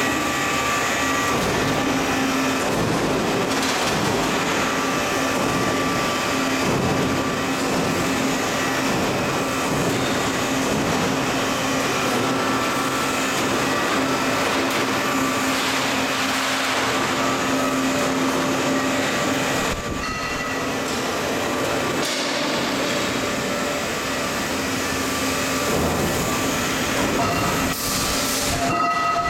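Single-screw polystyrene extrusion line running: a loud, steady machine drone with a constant low hum and thin higher whines held throughout.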